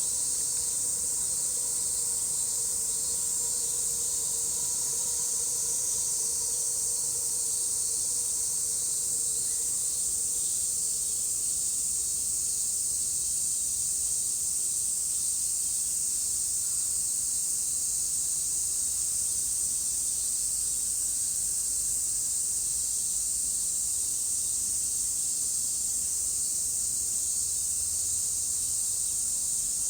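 A chorus of cicadas singing together in a continuous, high, even shrill that never breaks.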